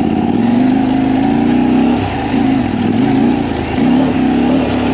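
KTM 890 Adventure R's parallel-twin engine revving in first gear under load as the bike accelerates off-road, the engine note rising and falling several times as the throttle is opened and eased.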